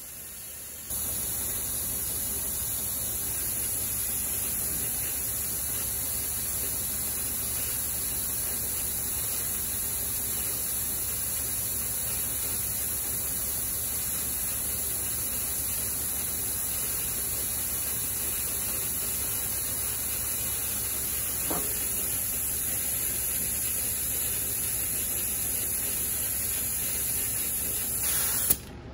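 Steady hiss of a power tool trimming sheet metal, starting suddenly about a second in and cutting off near the end.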